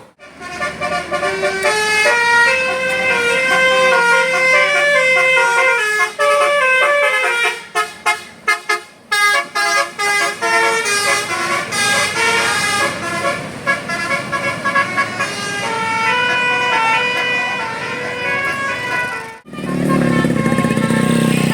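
Bus 'telolet Basuri' multi-trumpet musical horn playing a melody note by note, with a run of quick short toots about a third of the way through. It cuts off abruptly about two seconds before the end, giving way to a lower, rougher noise.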